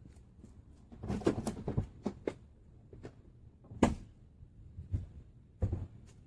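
Irregular knocks and clunks of tools and parts being handled, a cluster of rattling hits in the first two seconds, the loudest single knock about four seconds in and another near the end.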